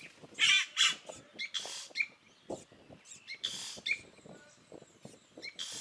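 Yellow-rumped cacique singing: a run of loud, scratchy, rasping notes, about five in all, with short chirps and clicks in between.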